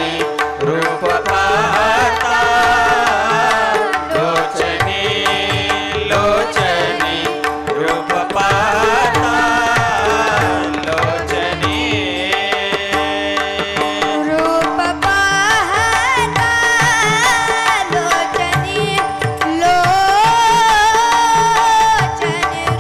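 Marathi bhajan music: tabla playing a steady rhythm under a sustained drone, with a long, ornamented melodic line wavering in pitch, most likely a singer's wordless vocal passage.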